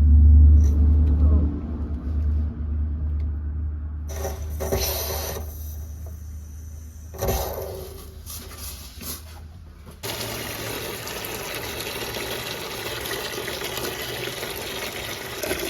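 Water rushing out of an electric water heater's opened drain valve, through a garden hose into a tub, as the tank is flushed of sediment. It is preceded by a loud low rumble, and the steady rush starts abruptly about ten seconds in.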